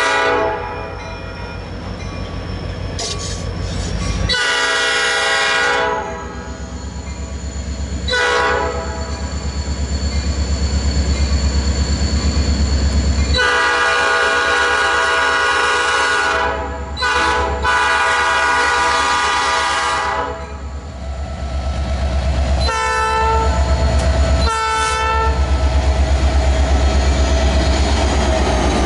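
Nathan Airchime P5 five-chime train horn sounding a series of long and short blasts, two of them near the end short and quick, over the steady rumble of the passing train.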